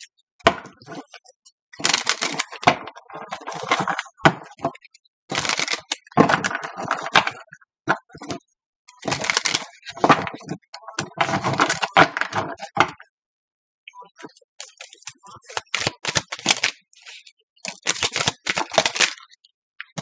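A deck of tarot cards being shuffled by hand: rapid crackling card flicks in repeated bursts of about a second each, with short pauses between them.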